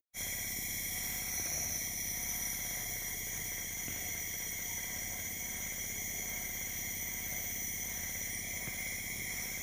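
Compressor nebulizer running steadily, its pump humming and the mist hissing through the medicine cup and mask.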